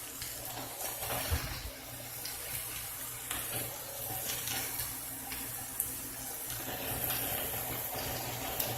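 Vegetables sizzling and steaming in butter in a pan: a steady hiss with a few light clicks and knocks as broccoli is added.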